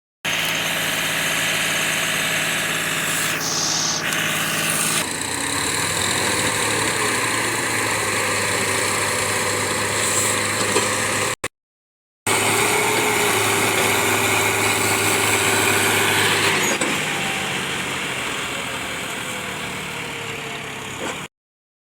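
Diesel engine of heavy farm machinery running steadily, its note changing a little after about five seconds with slow rises and falls in pitch. The sound breaks off for under a second about halfway through, then the engine runs on and eases slightly toward the end.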